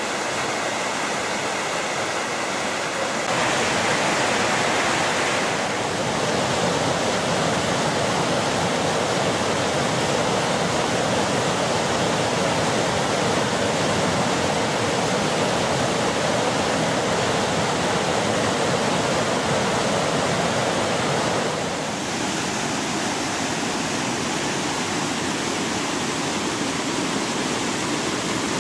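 Heavy rain pouring for about three seconds, then the steady rush of a rain-swollen waterfall in flood, muddy water crashing down over rocks.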